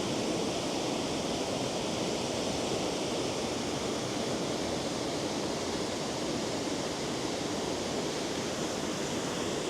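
Steady rush of falling and fast-flowing water from Aira Force waterfall and its beck.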